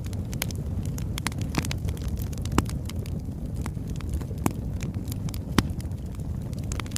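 Birch logs burning: a steady low rumble of flame with frequent small crackles and three louder pops.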